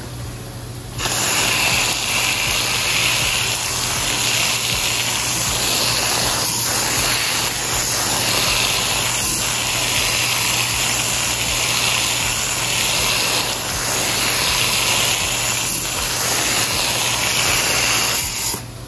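A steady jet of water spraying from a hand-held wand nozzle onto an aluminium radiator's fins, rinsing coil cleaner out of them: a loud, even hiss that starts about a second in and stops suddenly just before the end.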